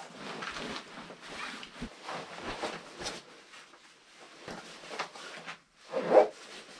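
A jacket rustling as it is pulled on and zipped up: a run of short rustles, with a louder one near the end.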